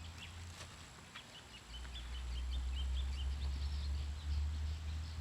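Small songbirds chirping, a run of short high notes, over a steady low rumble.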